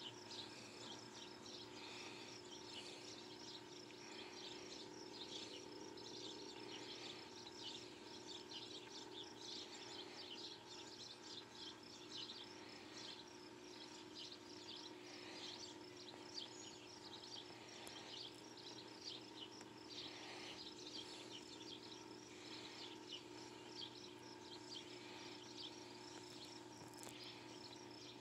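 Faint outdoor ambience: many short, high chirps repeating irregularly throughout, over a steady low hum.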